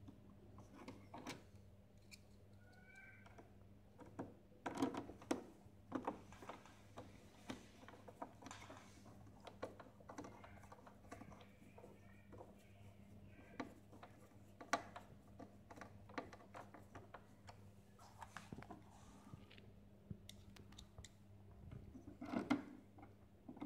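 Faint, irregular clicks and small scrapes of a hand screwdriver turning screws into the sheet-metal front frame of a Saeco Incanto HD8917 coffee machine, with a few louder clicks, over a steady low hum.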